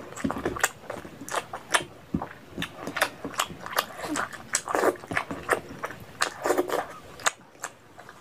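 Close-miked wet chewing and lip-smacking of a person eating saucy curry with her fingers, with many quick sharp smacks and clicks. It goes quieter near the end.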